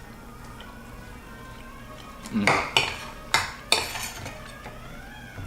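Eating utensil clinking and scraping against a plate of food: about two seconds of quiet, then about five sharp clinks in quick succession.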